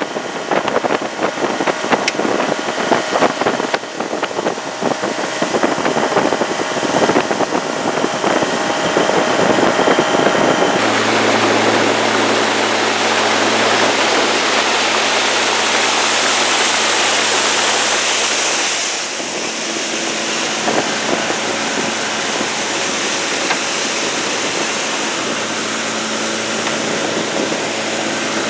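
Small river boat's outboard motor running, first at low speed with a choppy, pulsing note. About eleven seconds in it is throttled up to a steady higher-speed note, with water and wind rushing past.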